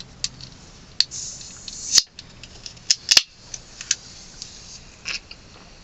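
Clicks and knocks of a drink container being handled, with a short hiss that rises and ends in a sharp click about two seconds in.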